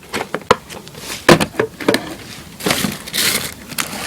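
Handling noise from a VHS cassette and its plastic case: a string of sharp clicks and knocks, then rustling in the second half.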